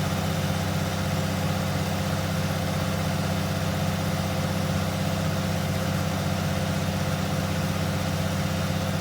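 Excavator's diesel engine idling steadily, with an even low pulse.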